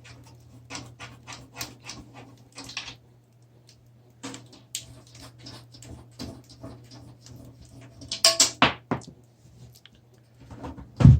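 Handling noises from a PC case and its tempered glass panel: scattered taps, clicks and scrapes, a louder cluster of knocks about eight seconds in and a sharp thump at the end, over a steady low hum.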